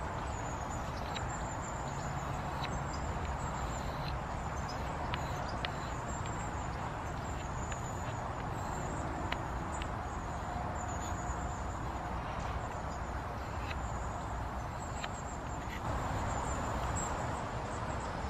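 Spoon-carving knife being stropped on a hand-held leather strop: soft strokes with a few faint clicks over a steady outdoor hiss.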